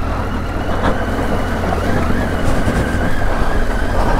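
Triumph Tiger 800's three-cylinder engine running at low revs as the bike is ridden slowly over rocks through a shallow water crossing, with a steady high whine running over it.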